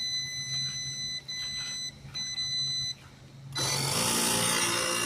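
Several uneven high electronic beeps, then about three and a half seconds in a small portable air compressor starts up and runs loudly, inflating a car tire.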